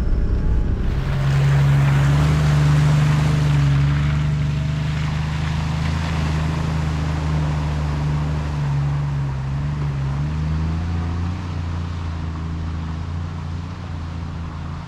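Toyota LandCruiser Troop Carrier engine running steadily as it drives along a dirt track, with a rushing noise over it that is strongest in the first few seconds; the whole sound fades gradually toward the end.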